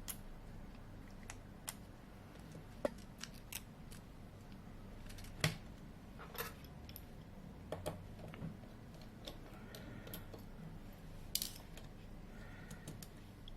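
Small tools clicking and tapping irregularly against a smartphone's parts during a teardown, over a low steady hum.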